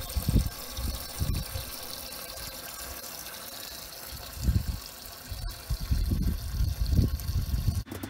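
Water from the helicopter's makeshift cooling system, driven by a 12 volt pump, gushing steadily back into its open container. Wind buffets the microphone in gusts underneath.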